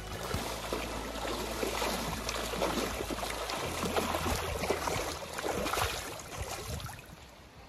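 Trout splashing and thrashing in a crowd at the surface of a hatchery pond, many quick irregular splashes, dying away near the end.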